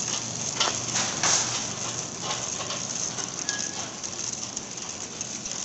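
Metal shopping cart rattling steadily as it is pushed across a hard store floor, with a few short crinkles of plastic packaging in the first couple of seconds.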